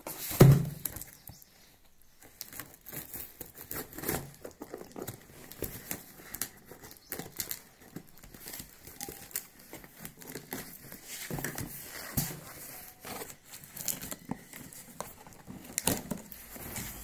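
A cardboard shipping box being cut open with scissors: irregular snipping, crinkling and tearing of packing tape, and rustling of the box. A loud knock just after the start as the box is set down on the wooden table.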